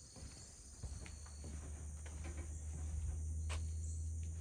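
Outdoor ambience of insects droning steadily, with a low steady hum coming in about a second in and a single sharp click near the end.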